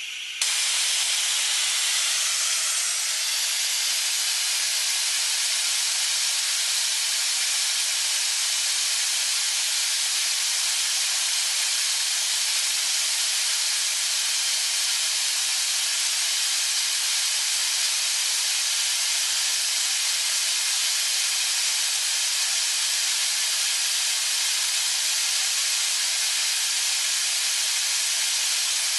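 Compressed air hissing steadily out of an open air blow gun on a 140-litre compressor tank, starting abruptly a moment in.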